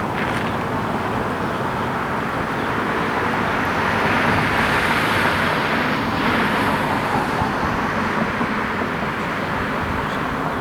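Road traffic noise: a car passes by, its tyre and engine hiss swelling about halfway through and then fading.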